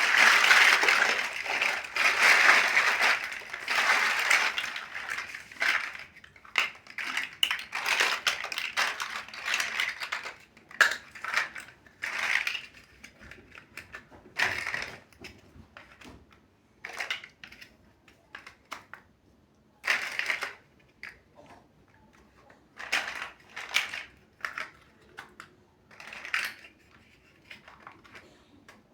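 Plastic building bricks clattering as they are handled: a dense rattle for the first six seconds or so, then scattered separate clicks and clacks.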